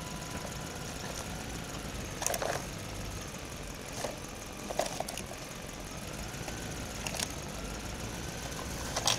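Plastic toy dump truck loaded with sand, pulled over dirt, dry leaves and twigs: about six short sharp clicks and crackles over a steady engine-like hum.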